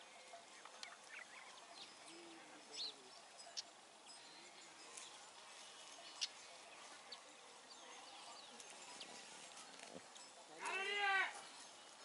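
A goat bleats once near the end, a single short call that rises and falls in pitch. It sounds over a faint outdoor background with a few small, short chirps and ticks.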